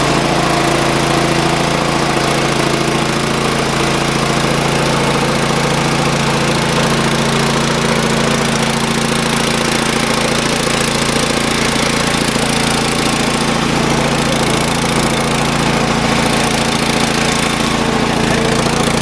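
Small pull-start gasoline engine of a portable air compressor running at a steady idle right after starting, choke off, with no air load on the compressor.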